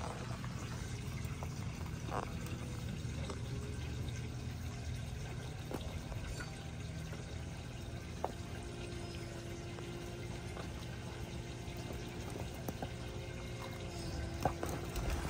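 Water running and trickling steadily over a low, steady hum, with a few isolated sharp clicks.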